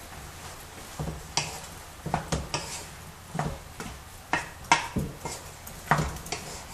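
Wooden spoon stirring a pan of sauce, knocking and scraping against the pan in irregular strokes that start about a second in.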